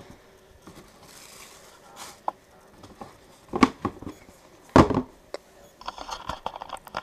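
Sneakers being handled and set down on a cardboard shoebox: a few soft knocks and rustles, the loudest a little before five seconds in, then a quick run of light taps near the end.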